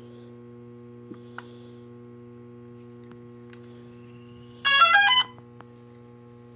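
DJI Phantom 3 quadcopter powering up: a quick run of electronic beep tones lasting about half a second, about two thirds of the way in, over a steady low hum. No grinding from the camera gimbal, the sign that re-seating its hex screw has cured the grinding.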